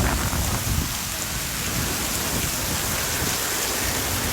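Heavy rain pouring steadily in strong wind, with a low rumble that is heavier in the first second.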